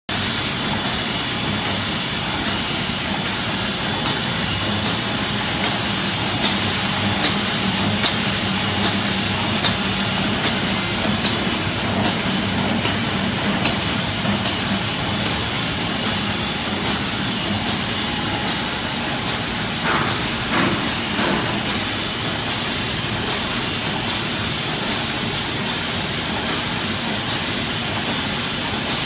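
ZY440 automatic book endsheet gluing machine running: a steady mechanical hiss with light, regular clicks, and a few louder knocks about two-thirds of the way through.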